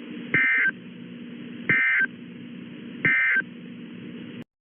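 Emergency Alert System end-of-message code: three short bursts of digital data tones about a second and a half apart, over a steady hiss and low hum that cuts off suddenly near the end.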